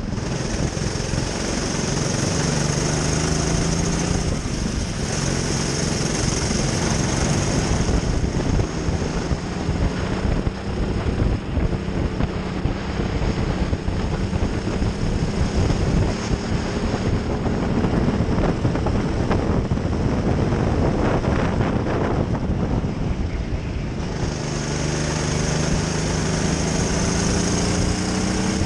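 Racing kart's engine running hard on track, its pitch climbing as it accelerates out of corners and falling back as it eases off, twice rising strongly, near the start and near the end.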